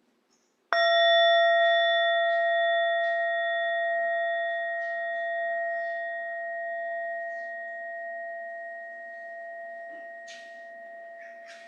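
A bell struck once about a second in, ringing on with several high, unevenly spaced overtones and slowly fading over about ten seconds.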